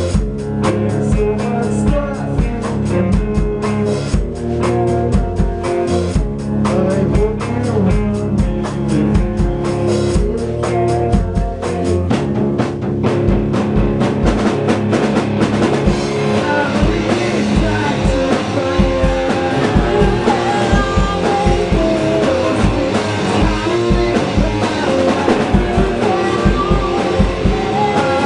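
Electric guitar and drum kit playing a rock song together, with a steady kick-and-snare beat. Partway through, the playing gets fuller, with more cymbal wash, and a man's voice sings over it in the later part.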